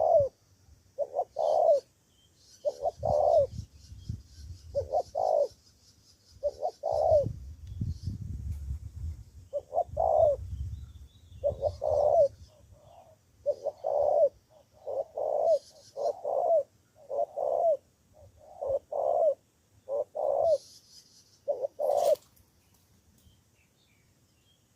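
Spotted dove cooing in repeated phrases of short, low hoots, stopping a few seconds before the end. Faint chirping of small birds runs underneath, with a low rumble now and then and a sharp click just after the last coo.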